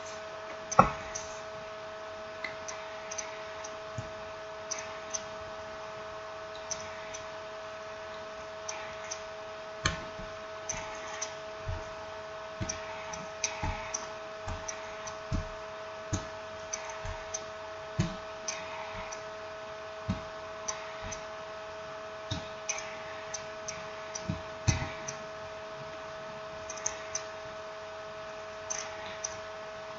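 Irregular small clicks and taps, dozens of them at uneven intervals, from tools and parts being handled while a smartphone is reassembled, over a steady electrical hum.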